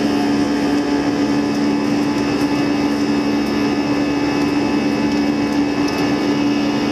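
Airbus A320 jet engines giving a steady, even drone with a constant hum.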